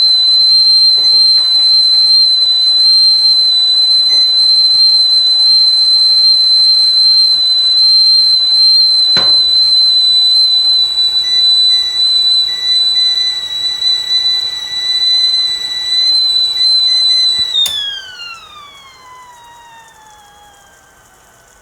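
Whistling tea kettle at the boil, one steady high-pitched whistle. Near the end there is a click, and the whistle slides down in pitch and fades away as the steam dies down, leaving a soft sizzle.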